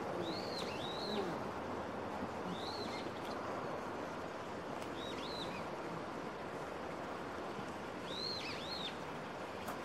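A bird calling outdoors: short, high, arched notes, mostly in pairs, repeated about five times over a steady background hiss.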